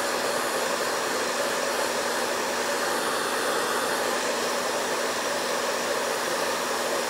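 Handheld hair dryer running steadily: an even rush of blown air over a steady low motor hum, aimed at leather adhesive to dry it to tackiness.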